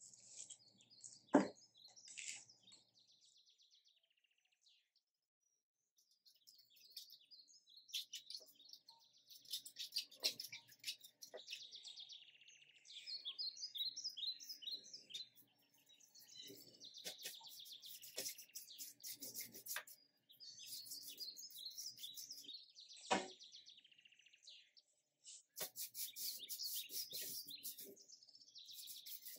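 Small birds chirping and twittering in quick repeated phrases, with two sharp knocks, one about a second in and one about three quarters of the way through.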